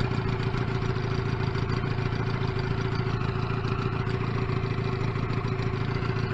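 Outboard motor running steadily at low trolling speed, pushing an inflatable boat along, with a constant low hum and a steady higher whine.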